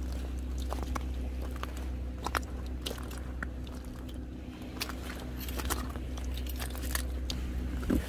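Irregular footsteps crunching and clicking over stones on a rocky tidal flat at low tide, with a steady low hum underneath.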